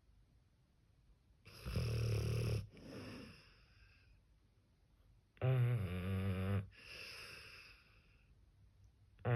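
Sleeping pit bull snoring: a loud, low snore about a second long, each followed by a softer breath. This happens twice, about four seconds apart, and a third snore starts at the very end.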